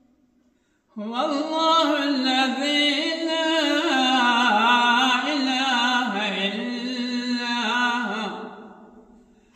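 An elderly man reciting the Quran in a melodic chant into a microphone: after a short pause, one long sung phrase with a wavering, ornamented pitch begins about a second in and fades out near the end.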